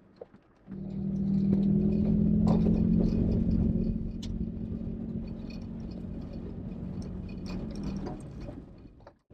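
Toyota Tacoma pickup driving on a dirt track, its engine running at a steady speed with a low rumble and light rattling clatter. The sound starts abruptly about a second in, is loudest for the next few seconds, then settles steady and quieter.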